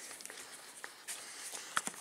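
Faint handling noises with a few light clicks and knocks, as things are moved about in a search for a battery lamp.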